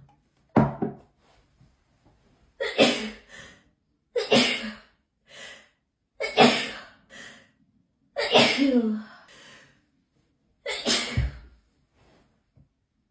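A person sneezing over and over in a hay fever sneezing fit: six loud sneezes about two seconds apart, each trailed by a quieter breath or follow-up burst.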